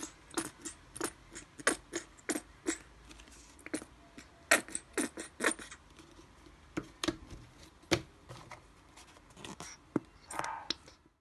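Plastic acrylic paint bottles handled and squeezed over paper: irregular sharp clicks and taps, roughly one to two a second, with a short rustle near the end.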